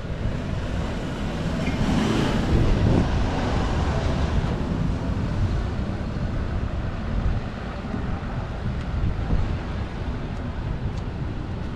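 Wind buffeting the microphone over open-air seafront street ambience, a steady low rumble that swells louder about two to three seconds in.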